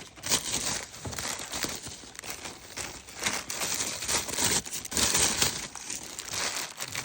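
Plastic bead packaging crinkling and rustling continuously as bags of beads are handled and opened.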